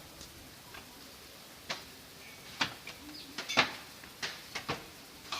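A handful of short, sharp clicks and knocks at irregular intervals over faint background noise, the loudest about three and a half seconds in.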